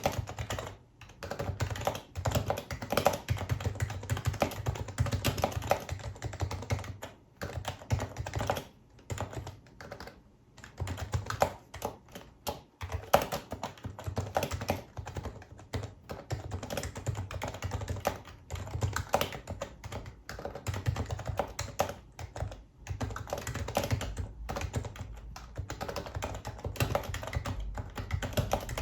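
Typing on a Happy Hacking Keyboard Professional HYBRID Type-S, its electrostatic capacitive (Topre) keys giving a fast, continuous run of soft keystroke clicks, broken by short pauses.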